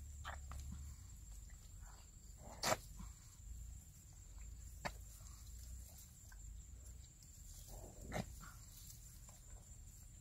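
Hands digging and groping in wet pond mud and shallow water: quiet squelching with a few short sharp clicks and splats, the loudest about two and a half seconds in. A faint steady high-pitched hum runs underneath.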